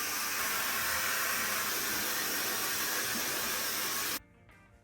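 Breezelle hand-held hair dryer blowing with a steady loud rushing hiss while hair is being dried. It cuts off suddenly near the end, leaving faint guitar music.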